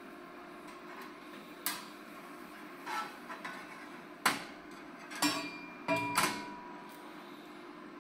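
Stainless steel grill grate clanking and scraping against the metal rails of an infrared steak grill as it is slid into place, about six sharp clanks, a few of them ringing briefly, over a steady low hum.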